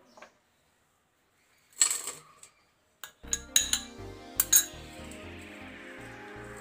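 Kitchen utensils clink and clatter against a vessel: one short clatter just under two seconds in, then several sharp clinks. Background music starts about three seconds in and carries on under them.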